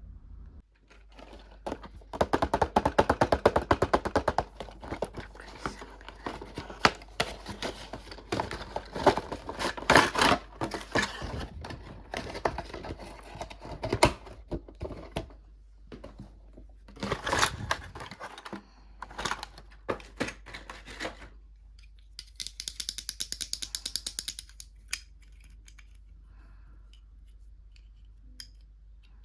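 Toy packaging being handled and unwrapped: bursts of rapid crinkling, crackling and small plastic clicks, with a stretch of finer, higher-pitched quick ticking near the end.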